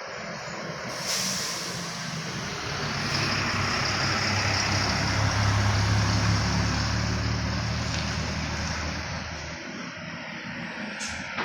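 A heavy diesel vehicle passing close by: a low engine hum and running noise that build to a peak about halfway through, then fade.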